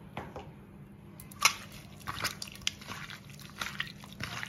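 Raw peeled prawns being squeezed and mixed by hand with turmeric and salt in a steel bowl: irregular wet squishing and small clicks, beginning about a second in.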